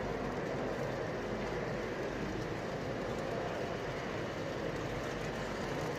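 Steady exhibition-hall hubbub with a model train running on a layout: an even rumble with no single event standing out.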